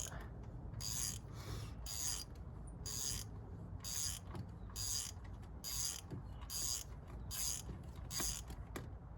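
Socket ratchet clicking in repeated short strokes, about one a second, as a rusty clutch slave cylinder bolt is being turned out.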